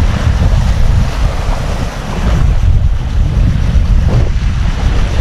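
Wind buffeting the microphone with steady, loud rumbling, over the wash of sea waves.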